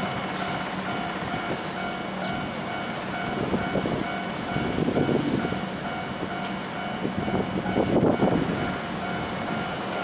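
Hiroden Miyajima Line tram running over the rails at a level crossing, its wheel rumble swelling about five seconds in and most strongly about eight seconds in, over a set of steady tones.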